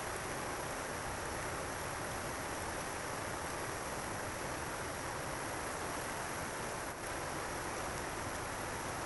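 Steady rushing of stream water, an even hiss with no distinct events.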